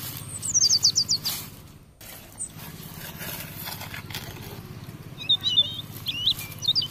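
Small songbird chirping: a quick run of high notes falling in pitch about a second in, then a longer twittering phrase near the end, over a steady low hum.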